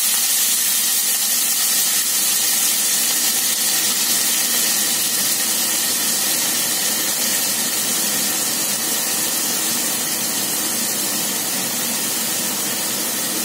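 Shredded cabbage and potato chunks sizzling in hot oil in a kadhai, freshly added for frying: a steady hiss that slowly eases.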